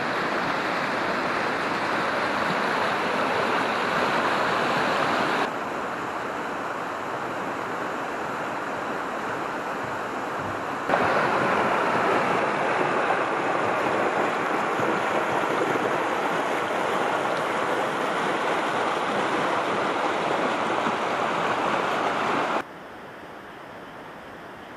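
The Bode, a mountain river, rushing over boulders as a steady white-water roar. The level jumps down and up abruptly twice, and near the end drops to a faint steady hiss.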